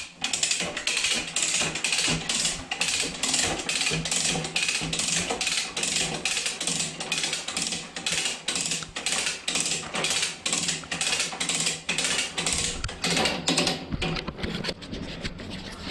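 Come-along hand winch being ratcheted, its pawl clicking in a steady rhythm of about three clicks a second as it tightens the cable to pull a stuck drain-snake cable out of a sewer pipe. The clicking thins out and fades near the end.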